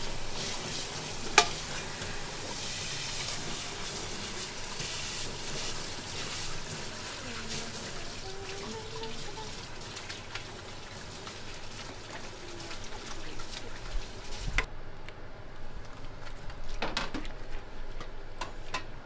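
Pork and vegetables sizzling as they are stirred in a pot for pork miso soup (tonjiru), with a sharp click about a second in. The sizzle cuts off suddenly near the end, leaving a few scattered clicks.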